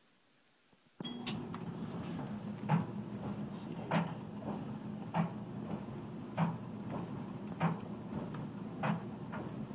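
Clothes dryer starting about a second in, then running with a steady hum while a wet journal tumbles in the drum, thudding about once every 1.2 seconds.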